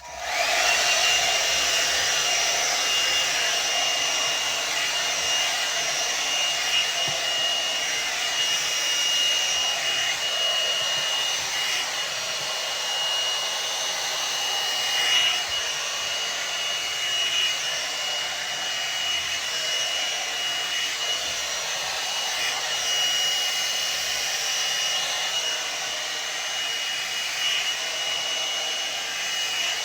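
Hairdryer brush (hot-air brush) switched on, then blowing steadily with a constant high-pitched whine over the rush of air.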